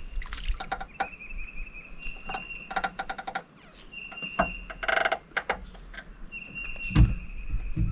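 Spinning reel cranked in and a small bream landed and handled: scattered clicks and knocks, a quick run of even clicks just before three seconds in and a dense rattle about five seconds in, over a steady high-pitched trill that comes and goes.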